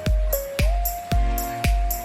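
Background music with a steady electronic beat: a bass drum about twice a second, with high ticks between and a held synth note over it.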